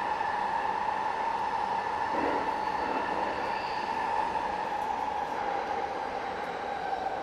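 Interior running noise of a JR East E233 series electric train under way, a steady noise bed with a constant high whine near 1 kHz, typical of its Mitsubishi IGBT VVVF inverter.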